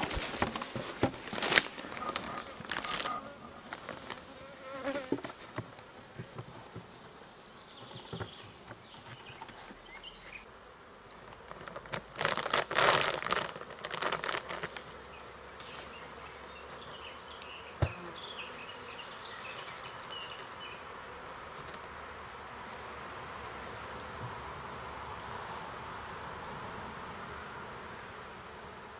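Honeybees buzzing around an opened hive, a steady hum that carries on through. In the first half, hive boxes and a plastic cover being handled give knocks and rustling, loudest about twelve seconds in.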